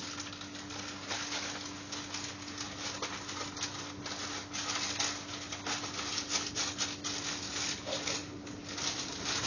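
Irregular rubbing and crackling from a hand-held phone's microphone, over the steady hum of a train carriage.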